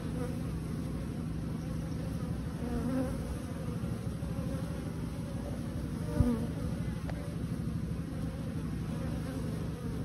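Honeybees buzzing steadily, the low hum of a colony, with one brief knock about six seconds in.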